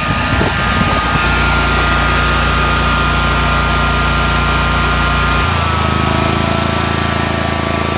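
Two-cylinder Kawasaki engine of a zero-turn mower running steadily. About five and a half seconds in, one spark plug wire is pulled off and the engine note changes abruptly and drops a little, but it keeps running on the other cylinder, a sign that this cylinder is still firing.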